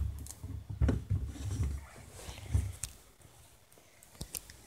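Handling noise from a phone's microphone rubbing and bumping against a fluffy blanket: low rumbling with a few knocks, dying down to quiet after about two seconds.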